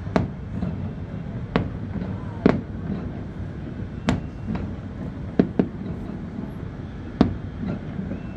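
Aerial fireworks shells bursting: about eight sharp bangs at uneven intervals, each with a short echo, over a steady low background noise.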